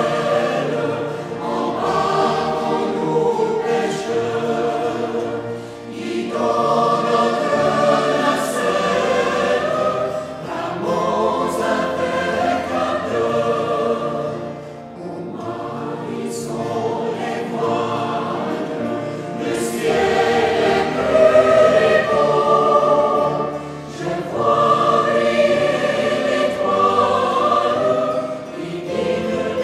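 Background music of a choir singing in long, slow phrases, with short breaks between phrases.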